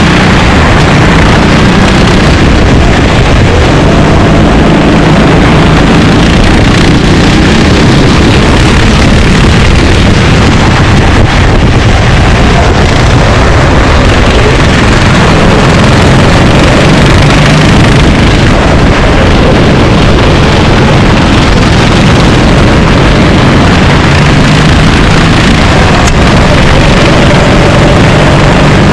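Racing kart engines running on track, their engine note rising and falling with speed, with some wind noise on the microphone.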